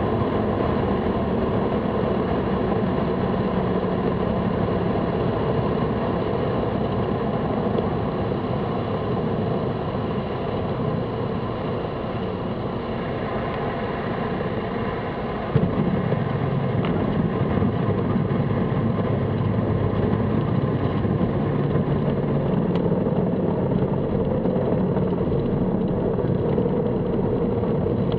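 Cessna 172's piston engine and propeller running steadily at low power as the plane lands and rolls out, heard from inside the cabin. A brief click comes about halfway through, and the engine is a little louder after it.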